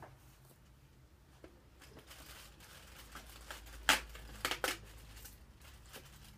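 Cardboard chocolate advent calendar being handled and a door pried open: soft rustling and scraping of card, with a sharp crack a little before the middle and two more just after.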